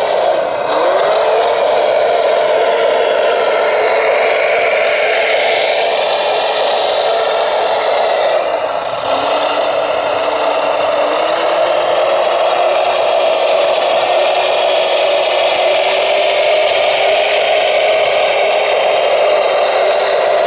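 Radio-controlled scale model vehicle running: a steady whine from its electric drive, its pitch dipping briefly about a second in and again around nine seconds in as the load or speed changes.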